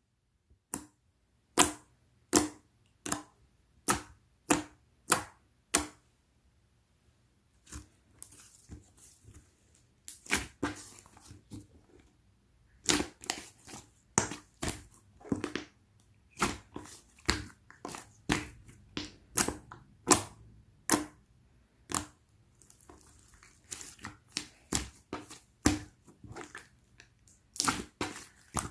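Pink pearl marbled slime being pressed and played with, making a run of sharp popping clicks, with softer crackling stretches between them.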